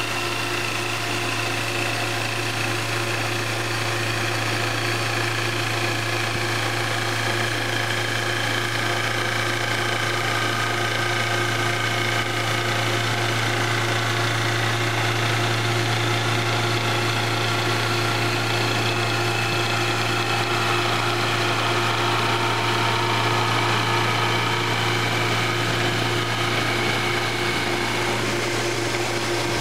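Intorex CI 1500 copy lathe running, its knives cutting a spinning wooden spindle: a steady machine hum and a fixed tone, with higher whines that slowly fall in pitch as the cut goes on.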